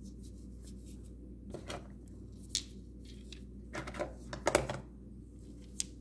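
Rough stones clicking against one another as they are picked by hand out of a box of rocks: a few short, light knocks spread out over the seconds, over a faint steady hum.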